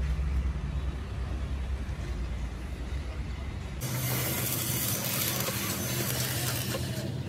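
Workshop machinery: a steady low motor hum, then an abrupt change about halfway through to a loud, even hiss over a steady hum.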